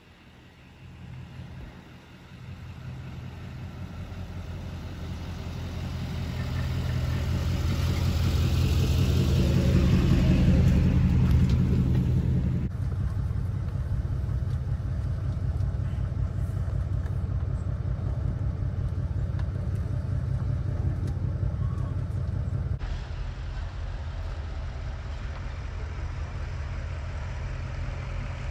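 A vehicle approaching on a paved road, its engine and tyre noise growing steadily louder for about ten seconds as it nears. Then, after an abrupt cut, steady engine and road noise from inside a moving vehicle's cabin, and near the end a lower, steadier drone.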